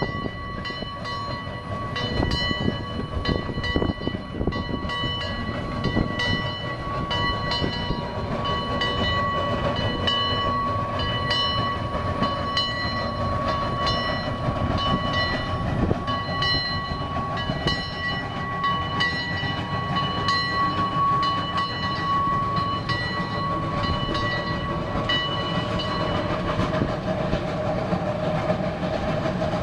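Geared steam locomotive working hard as it pulls away, its exhaust chuffing in quick beats, with a long steady steam-whistle tone held over most of it that stops a few seconds before the end.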